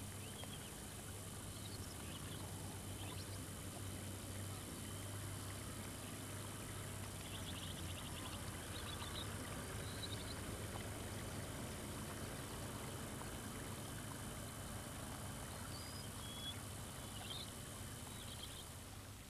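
Quiet outdoor ambience: scattered short bird chirps over a steady low hum and hiss, fading away near the end.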